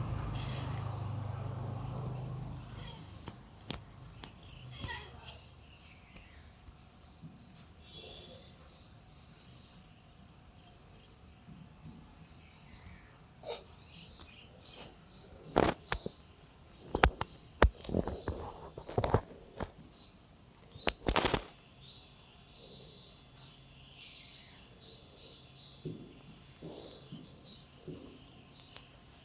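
Insects droning in a steady high-pitched chorus, with faint small chirps over it. About halfway through comes a cluster of sharp, louder clicks and knocks.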